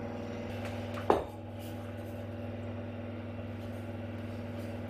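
A low steady electrical hum, with one sharp knock about a second in.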